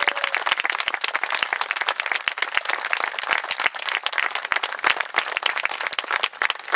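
A crowd applauding, with many hands clapping steadily.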